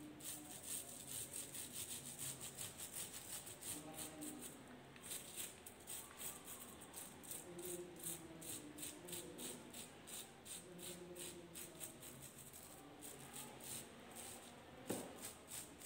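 Paintbrush scrubbing thick acrylic paint over bubble wrap in quick back-and-forth strokes, a faint dry scratching several times a second. One sharper knock near the end.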